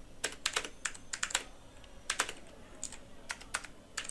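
Computer keyboard typing: quick runs of key clicks in a few short bursts, with brief pauses between them.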